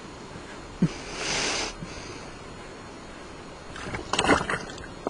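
Shallow river water running, with a splashing rush about a second in and a quick cluster of knocks and splashes around four seconds in, like stones dropped or thrown into the water.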